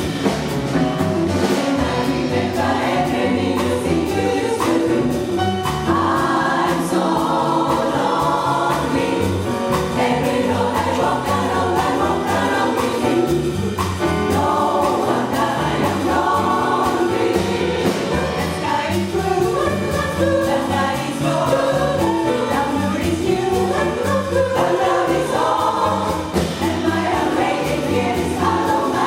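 Jazz chorus singing in parts, with a jazz band of piano, saxophone, bass and drums accompanying at a steady beat.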